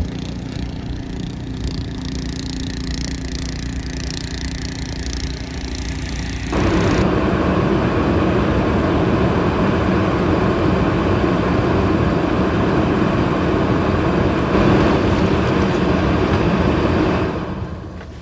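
Car driving through deep snow: steady engine and tyre noise that grows louder about six and a half seconds in and fades near the end.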